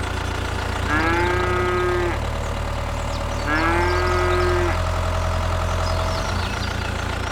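A cow mooing twice, each moo about a second long, over a steady low engine hum.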